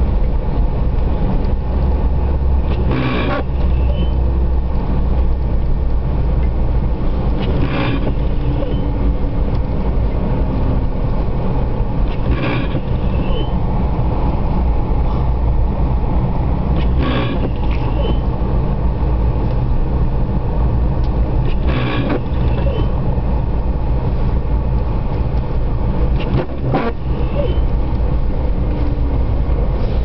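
Steady engine and tyre rumble of a vehicle driving on a snow-covered road, heard inside the cabin. A brief swish comes about every four to five seconds, six times, from the windscreen wipers on an intermittent setting.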